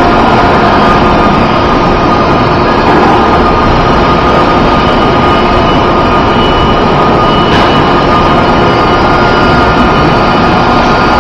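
Loud, steady machinery drone with a few constant tones running through it.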